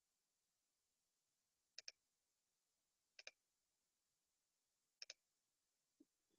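Faint computer mouse clicks: three quick double ticks about a second and a half apart, each a button press and release, placing landmark points in surgical planning software.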